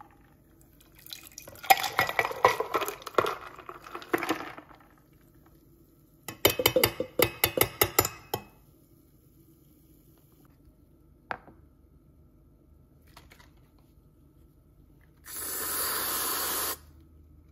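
Kitchen clatter of a stainless steel pitcher and spoon knocking against a ceramic mug as frothed coffee is poured and mixed, including a quick run of sharp clinks midway. Near the end comes a steady hiss of about a second and a half from a can of whipped cream being sprayed onto the coffee.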